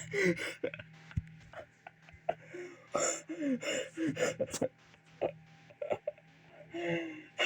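A person laughing hard in short, breathless bursts, each one falling in pitch, with gaps and small clicks between.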